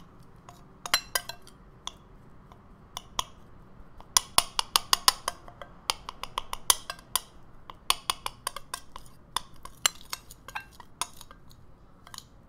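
Metal spoon clinking and scraping against a glass bowl while stirring stiff coconut butter and cacao together: many sharp, irregular clinks, thickest in the middle.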